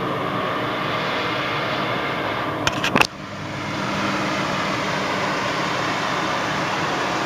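Nissan Frontier pickup running at low speed off-road, a steady engine-and-noise bed, with a quick cluster of sharp knocks about three seconds in.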